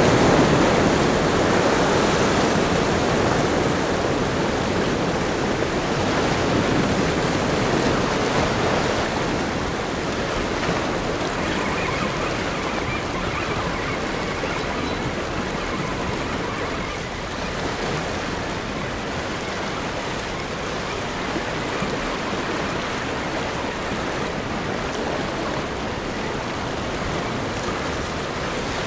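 Sea surf washing against shore rocks, a steady rushing wash that is a little louder in the first few seconds and then eases.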